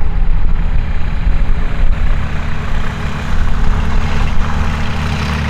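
Cessna 182P Skylane's six-cylinder Continental O-470 engine and propeller at full takeoff power during the takeoff roll: a steady low drone that grows louder and brighter about three seconds in.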